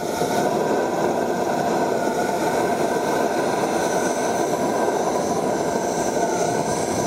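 Compressed air blown into a diesel-soaked intake manifold while a MAP-gas torch burns out the carbon deposits inside: a loud, steady rushing noise that holds an even level throughout.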